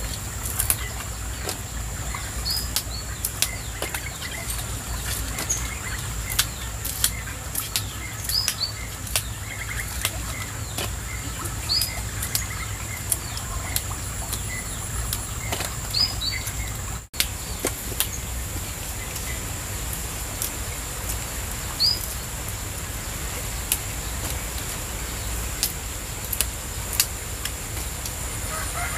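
Crisp, irregular snaps of fresh genjer (yellow velvetleaf) stalks being broken by hand, over a steady low rumble and a constant high tone, with short bird chirps every few seconds.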